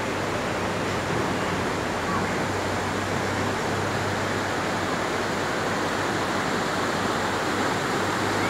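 Steady rush of a shallow river running fast over rocks, with a low steady hum underneath.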